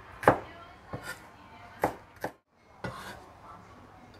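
Cleaver slicing shallots on a bamboo cutting board: four last knife strokes, more spaced out than a steady chop, the first and last two sharpest. About three seconds in comes a brief soft scraping as the sliced shallots are gathered off the board.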